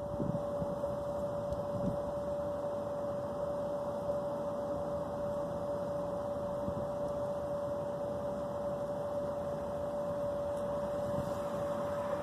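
Steady background hum and hiss with one constant mid-pitched tone held through it, like a fan or other small motor running.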